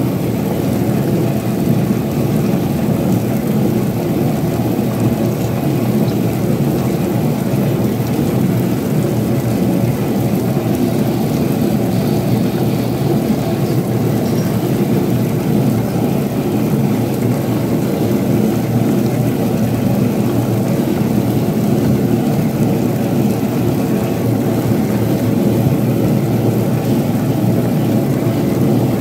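Tabletop wet grinder running steadily, its granite roller stones churning round the steel drum with an even rumble while rice batter for idli is scooped out by hand.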